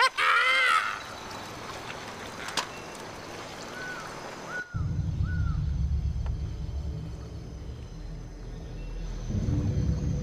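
Film soundtrack: a brief loud cry at the start, a few short bird calls, then a sudden switch to a low, steady rumbling drone of score that swells near the end.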